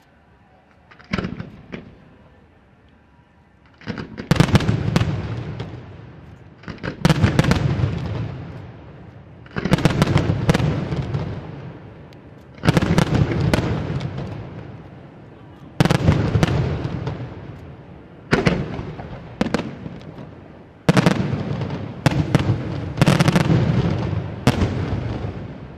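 Aerial firework shells bursting in volleys: after a couple of small pops about a second in, a loud cluster of bangs comes roughly every three seconds, each dying away in a long rolling echo.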